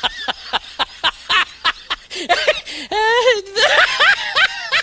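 A person's voice making rapid short breathy vocal bursts, like snickering laughter or straining grunts, with a drawn-out wavering moan about three seconds in.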